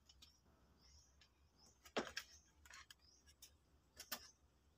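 Near silence with a few faint clicks from hands handling and setting down a Bluetooth speaker's plastic casing: two about two seconds in and one near the end. Faint short high chirps come and go in the background.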